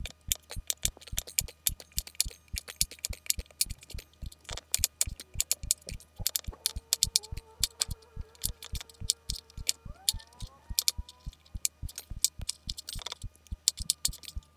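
Background music with a steady, even beat of about three beats a second over a low drone, with a faint wavering melody line in the middle.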